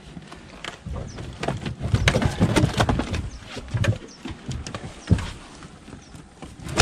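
Knocks, thumps and rustling of a landing net as two large catfish are handled in it on a boat deck, busiest in the first half, with a sharp thump about five seconds in.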